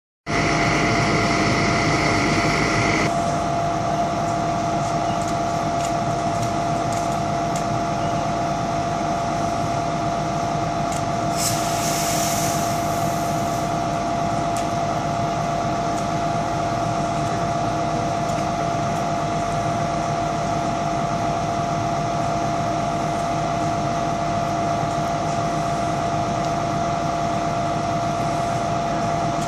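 Steady drone of a running engine-driven machine with a constant whine, with an added hiss over the first three seconds and a brief high hiss about eleven seconds in.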